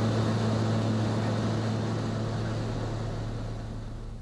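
Light propeller aircraft's engine droning steadily as heard from inside the cabin: a low, even hum over rushing noise that fades out near the end.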